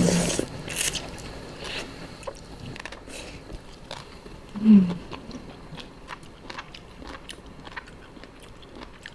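Close-up chewing and biting of a seafood papaya salad, crunchy and wet with many small mouth clicks, loudest at the very start.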